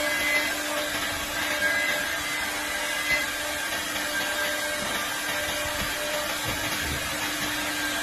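CNC door lock-hole and hinge machine running: a steady rushing machine noise with a constant whine from its spindle motors as the router heads work a wooden door.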